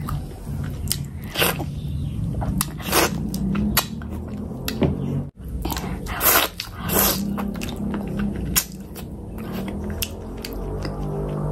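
Close-miked mouth sounds of eating oily fish curry by hand: wet chewing, lip smacks and sharp clicks, with fingers squelching in the curry gravy. A brief sudden dropout about five seconds in.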